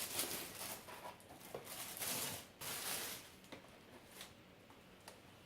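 Paper and packaging rustling and crinkling in irregular bursts as items are handled, dying down about three and a half seconds in to a few faint ticks.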